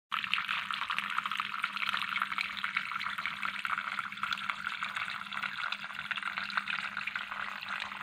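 A small cement tabletop water fountain running: thin streams of water fall steadily onto pebbles in a shallow basin, making a continuous trickling and splashing, with a faint steady hum underneath.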